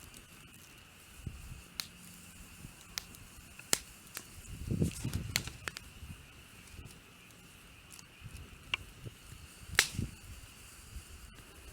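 Wood campfire crackling: scattered sharp pops a second or so apart, the loudest about ten seconds in, with a low rustling knock around the middle.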